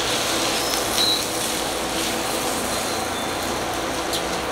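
Wooden spatula stirring and scraping chopped milkfish sisig in a frying pan over a steady hiss of cooking, with a brief sharper scrape or knock about a second in.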